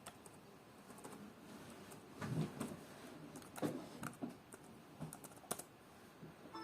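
Laptop keyboard keys being pressed: a handful of separate faint key clicks, irregularly spaced, starting about two seconds in.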